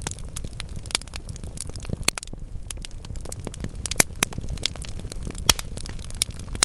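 Wood logs burning in a fireplace, crackling with irregular sharp pops over a low steady rumble of flame. The loudest pops come about four and five and a half seconds in.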